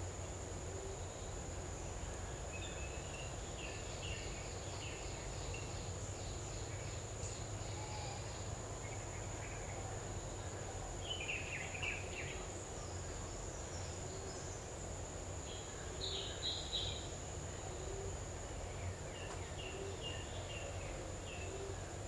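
Forest ambience: a steady high-pitched insect drone over a low rumble, with scattered short bird chirps. The chirps are loudest a little past halfway and again about three-quarters through.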